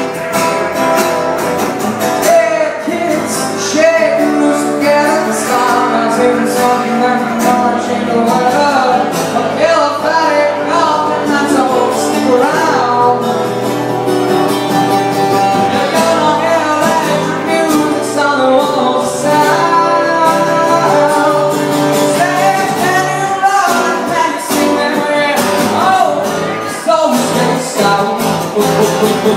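Live amplified acoustic music: an acoustic guitar played through a PA with a man singing over it.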